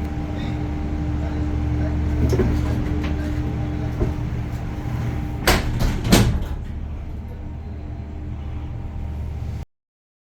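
Cable car gondola running along its cable, heard from inside the cabin: a steady low hum, a few light knocks, and two sharp clunks a little over half a second apart about five and a half seconds in. The sound cuts off suddenly near the end.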